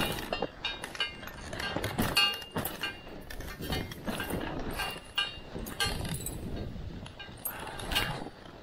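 Irregular metallic clinking and jingling from a running sled dog team's harness hardware, with many short clicks throughout.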